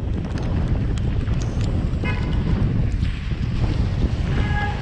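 Wind buffeting the microphone of a moving bicycle on a wet street, a steady low rumble. Two brief high squeals sound, one about two seconds in and one near the end.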